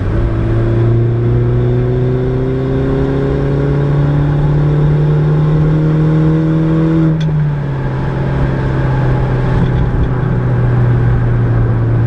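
Mini John Cooper Works R56's turbocharged 1.6-litre four-cylinder with a modified downpipe exhaust, heard from inside the cabin, accelerating with its pitch climbing slowly through a gear. About seven seconds in, an upshift drops the pitch with a click, and the engine pulls on steadily.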